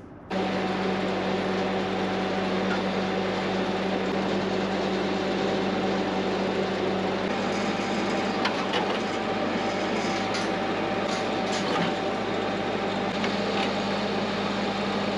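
Steady hum of a running motor or machine, even and unchanging, with a few faint knocks of metal work.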